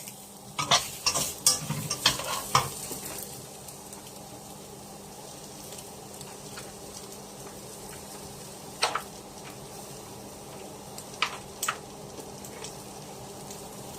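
Onions sizzling in butter in a pot as they are stir-fried. A utensil knocks and scrapes against the pot in a quick run of strikes during the first few seconds, then a few more times later.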